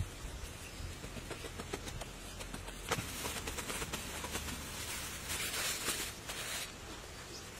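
Grass rustling and tearing as it is pulled up by hand, with scattered clicks and one sharper click about three seconds in.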